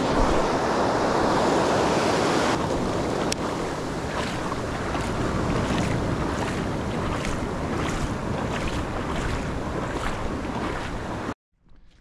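Ocean surf washing ashore with wind buffeting the microphone, loudest in the first couple of seconds. From about four seconds in, a regular beat of soft strokes comes about twice a second. The sound cuts off suddenly near the end.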